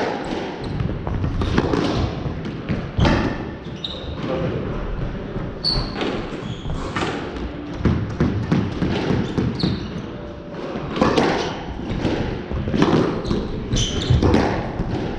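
Squash rally: the ball struck by rackets and hitting the walls every second or two, with shoes squeaking and feet thudding on the wooden court floor.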